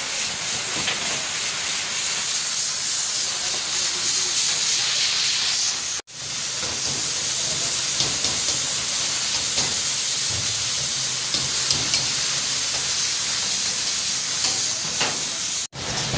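Steam hissing steadily from a venting pressure cooker. After a brief break about six seconds in, a wok over a flaring gas burner hisses and sizzles, with a few light clicks of the cook's tongs and ladle on the pan.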